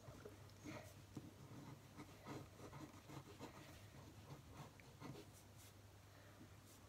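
Faint, irregular scratching strokes of a pen on paper as a child draws, over a low steady hum.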